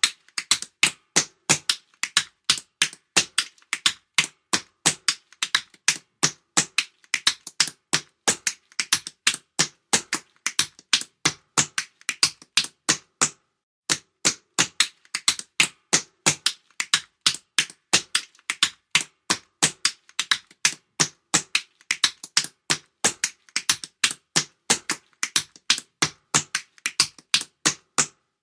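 Tap shoes striking a hard floor in tap-dance steps: a run of sharp metallic clicks, about three to four a second in an uneven, syncopated rhythm, with a brief pause about halfway through.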